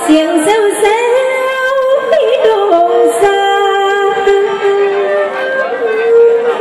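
Female mor lam singer singing an Isan lam rueang to klon, long held notes that bend and waver, over band accompaniment through a stage sound system.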